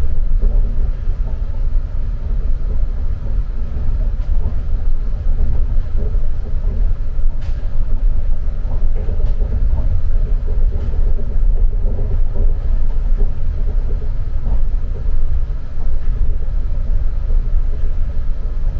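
Rokko Liner rubber-tyred automated people mover running along its guideway, heard from inside the car: a steady low rumble, with a couple of sharp clicks partway through.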